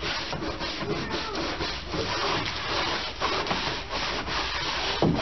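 Push broom bristles scraping across wooden deck boards in quick repeated strokes, with one dull knock near the end.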